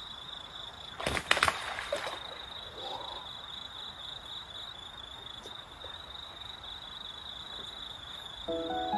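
Quiet stream-side ambience: a steady hiss of flowing water with a steady high-pitched whine over it, and a short cluster of sharp noises about a second in. Background music starts near the end.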